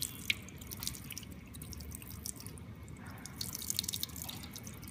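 Tap water running and splashing over a glass test tube held under the faucet, cooling the tube just after boiling it, with a steady patter of drops into the sink that gets busier near the end.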